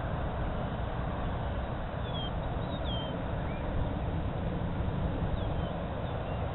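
Steady low rumble and hiss of outdoor airfield background, with a few short high bird chirps scattered through it.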